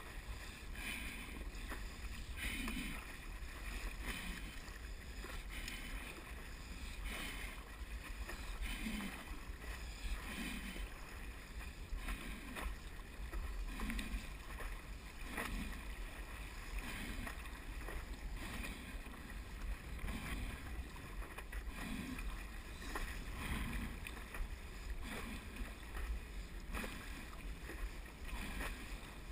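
Stand-up paddle strokes in the water, a regular swish and splash about every one and a half seconds, over a steady low wind rumble on the microphone.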